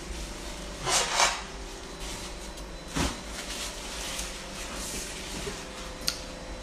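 A paper napkin rustling and crinkling as hands are wiped with it, loudest about a second in, with a sharp tap about three seconds in.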